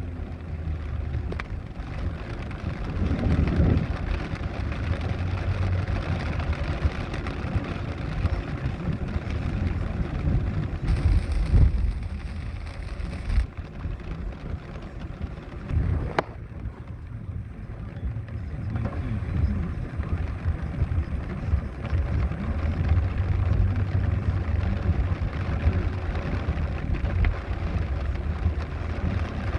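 Vehicle traffic in heavy rain, heard as a steady low rumble with a hiss over it. A single sharp click comes about halfway through.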